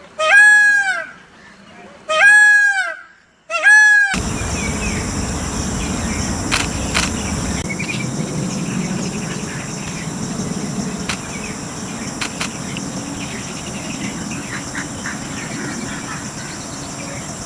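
Peacock calling loudly three times in the first four seconds, each a single arching call of about a second. Then it cuts to a steady outdoor background with a high-pitched hum and a few sharp clicks.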